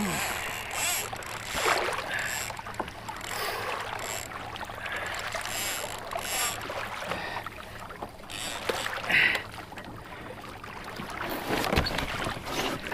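Water washing against a fishing kayak's hull as it is towed along, with scattered knocks and rubs of gear on the boat.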